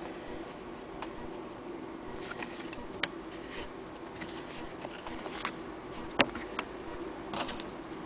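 Handling noise: scattered light clicks and short rustles, with no steady rhythm, as a stitched cloth sample is moved about by hand. They sit over a steady low hum.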